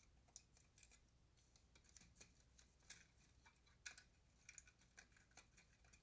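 Near silence with faint, irregular clicks and taps of parts being handled in a car's engine bay.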